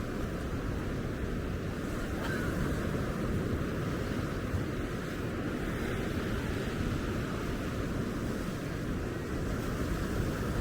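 Steady, continuous wash of ocean surf breaking on a sandy beach.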